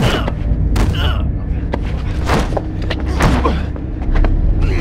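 Film fight sound effects: a rapid series of punch and body-hit impacts with grunts from the fighters, over a steady low rumble.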